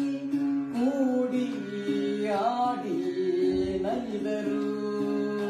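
Folk singing: a man's voice gliding and bending in a vocal line without clear words over the steady drone of a plucked ektara, a one-string gourd lute.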